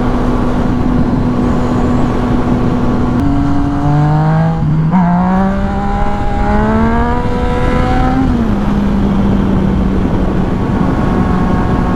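Yamaha FZ-09's inline three-cylinder engine heard from the rider's helmet: a steady note, then rising in pitch as it accelerates with a gear change about five seconds in, then easing off to a lower steady note. Wind noise on the microphone runs underneath.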